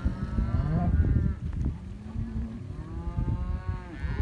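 Cattle mooing: two drawn-out moos, one right away and another about three seconds in.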